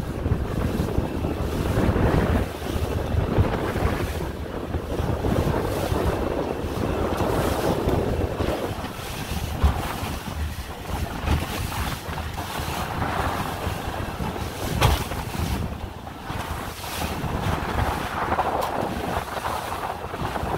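Heavy wind buffeting the microphone and choppy water splashing against the hull of a 15-foot Gregor aluminium boat running through whitecaps, the noise swelling and easing with the waves. A couple of sharper knocks stand out, about ten and fifteen seconds in.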